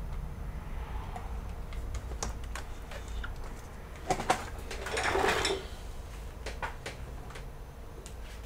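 Scattered light clicks and a brief rustling scrape about five seconds in, from hands working at a computer desk.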